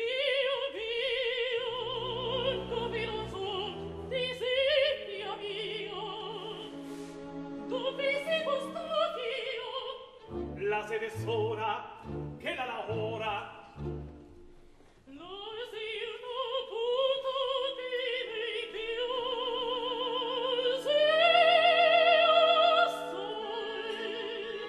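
Operatic singing with orchestra: a high voice with wide vibrato over strings, in a live stage performance. The voice swells to its loudest on a held high note near the end.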